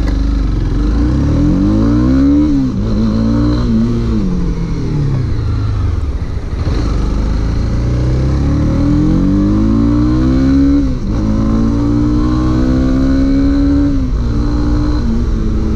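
Honda CB300R's 286 cc single-cylinder engine accelerating through the gears: the revs climb and drop back sharply at each upshift, several times, ease off for a couple of seconds in the middle, then level out to a steady cruise near the end.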